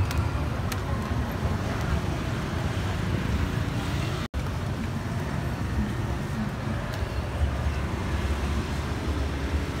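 Busy street traffic: cars and motorbikes running past in a steady low rumble. The sound drops out for an instant about four seconds in.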